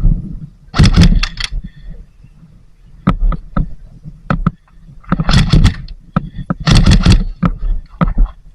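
Airsoft guns firing in three short bursts of rapid sharp clacks, about a second in, midway and again a second later, with single clacks between them over a low rumble of wind and gear handling.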